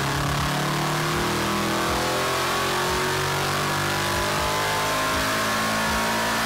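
Supercharged LS9 6.2-litre V8 at full throttle in a chassis-dyno pull, its revs climbing steadily from about 4,200 to 6,700 rpm through a 3-inch true dual exhaust. The engine is under about 17 to 18 psi of boost.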